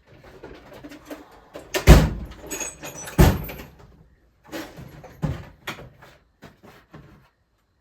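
Clatter of hand tools and parts being handled: two loud knocks about two and three seconds in, then a few lighter clicks and taps.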